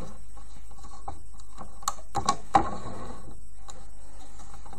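Small plastic clicks and taps of a rubber-band loom and its hook being handled as bands are placed on the pins, with a quick run of sharper clicks about two seconds in.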